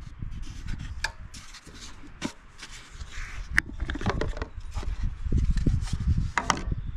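Plastic air filter cover on a Honda GX160 engine being unclipped and worked off, with several sharp clicks and rubbing, scraping noise. A low rumbling noise sits underneath and is loudest in the second half.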